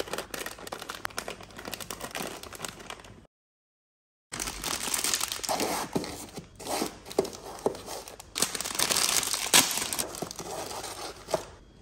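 Plastic snack packets crinkling and rustling as they are handled and packed into a drawer, with light knocks among them. The sound cuts out completely for about a second a third of the way in.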